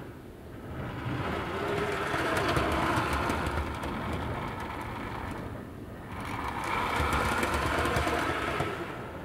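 Two-car model railway train running over newly laid Peco points and double slips on a test run, its wheels clicking over the rail joints and pointwork. The sound swells and fades twice as the train passes.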